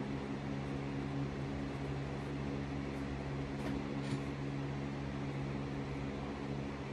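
Steady machine hum with an even hiss and no change in level, and a couple of faint light ticks about three and a half and four seconds in.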